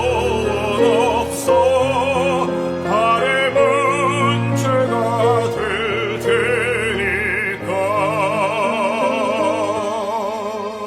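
Slow music: a melody with strong vibrato over held accompaniment notes.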